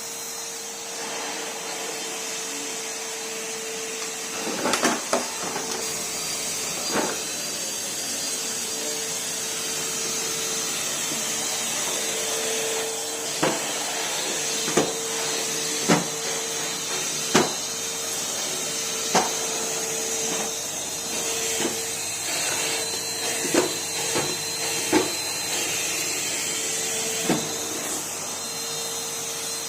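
Numatic Henry cylinder vacuum cleaner running steadily, a constant hum with airy hiss, broken by a scattering of short sharp knocks as the hose and floor tool bump about during vacuuming.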